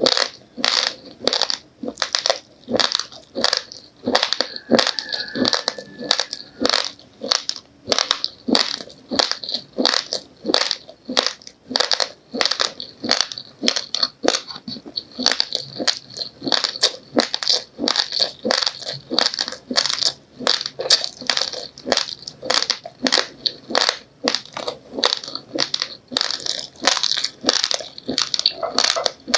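A person chewing uncooked raw rice grains, a steady run of crisp crunches at about two a second.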